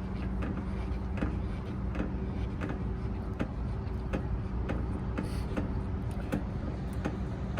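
Steady low hum of an idling vehicle engine, with light, irregular clicks and taps over it.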